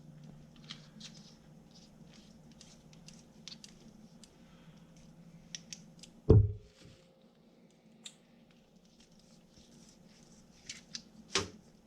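Handling of small plastic pen lights and their packaging: scattered light clicks and rustles, with one heavy thump about six seconds in and a sharper click near the end.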